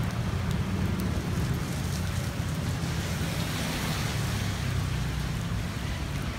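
Wind rumbling on the phone's microphone over a steady hiss of falling rain.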